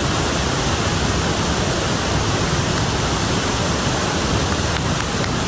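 A waterfall and a muddy river swollen by monsoon rain rushing over rocks make a loud, steady noise.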